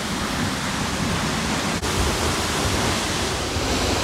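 A large waterfall crashing onto rocks close by, a steady rushing of falling water.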